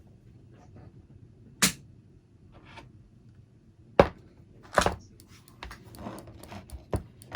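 A few sharp knocks and clicks of small hard objects being handled and set down on a workbench, three louder ones spread apart and then a run of faint clicks.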